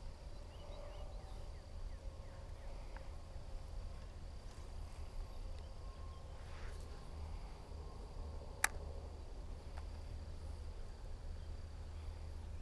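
Quiet outdoor ambience: a steady high insect drone over a constant low rumble, with faint scattered ticks and one sharp click a little under nine seconds in.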